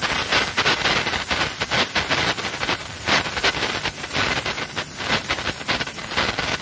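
Oxy-acetylene welding torch with a neutral flame hissing on mild-steel pipe, with dense irregular crackling as the filler rod melts into the weld pool and sparks fly.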